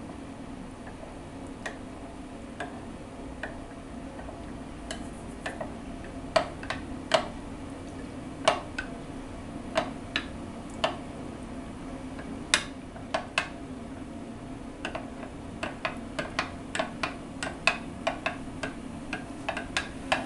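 Teaspoon clinking against a drinking glass while stirring potato starch into water: light, irregular clinks, sparse at first and coming more often from about six seconds in, over a steady low hum.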